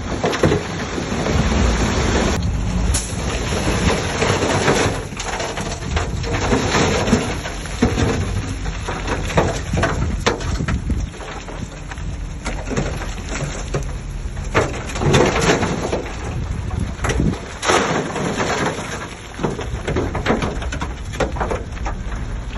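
Shantui DH17C3 bulldozer at work: a low engine rumble under a dense, irregular crunching and crackling of soil and stones being pushed and broken under the blade and tracks.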